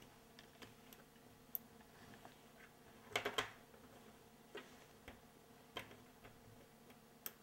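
Small, faint clicks and taps of a plastic wiring-harness connector and a crimped pin terminal being handled, as the terminal is pushed into the connector housing; a quick cluster of louder clicks about three seconds in, with single ticks scattered around it.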